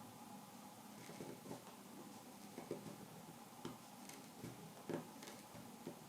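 Faint, irregular ticks and scratches of a knife tip making small stabbing cuts into cherry wood, cutting kolrosing lines, with the strongest tick about five seconds in.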